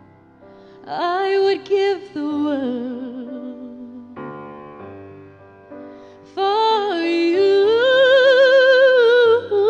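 A woman singing a slow ballad over solo piano: two phrases of long held notes with vibrato, one about a second in and a longer, higher one in the second half. The piano chords sustain beneath.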